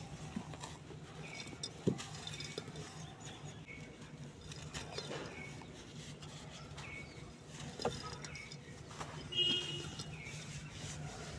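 Grainy cement-sand lumps crumbling and crackling, with a few sharp cracks, over a steady low hum. A brief bird chirp comes near the end.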